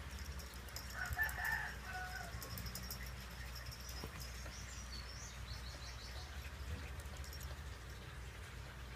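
A rooster crowing once, starting about a second in and lasting about a second and a half, with a small bird chirping a few high falling notes a few seconds later.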